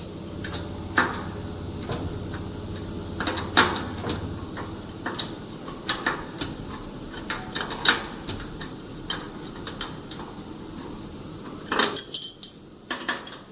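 Irregular metallic clinks and knocks of hand tools working on metal machine parts while the band saw's blade position is adjusted, over a low hum that fades about five seconds in. The clatter is busiest near the end.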